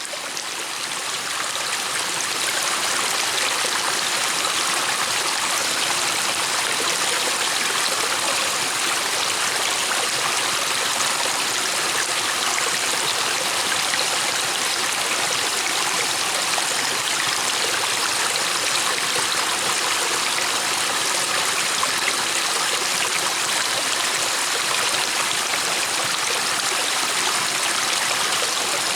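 River water flowing and splashing over stones, a steady bright rush that fades in over the first couple of seconds.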